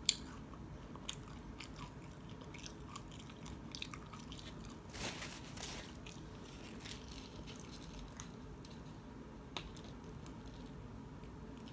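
Close-miked chewing and crunching of food, with scattered small mouth clicks and a louder burst of noise about five seconds in.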